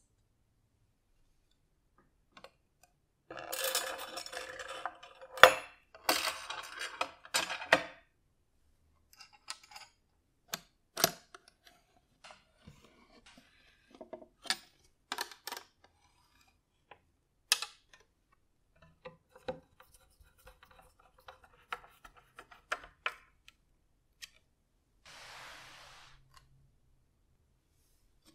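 Hardware being fitted during reassembly of an antique meat slicer: washers and bolts clinking against its painted metal frame and a wrench tightening a nut on its wooden base, heard as scattered clicks, taps and scraping, with a denser stretch of rubbing and clicking a few seconds in.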